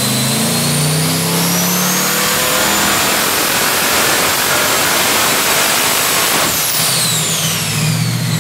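406 cu in LS Next V8 with twin Garrett GTX42/94R turbochargers making a dyno pull: the engine runs hard and the turbo whine climbs for the first few seconds and then holds. About six and a half seconds in, the throttle closes, the turbo whistle sweeps down as the turbos spool down, and the engine drops to a lower, steady note.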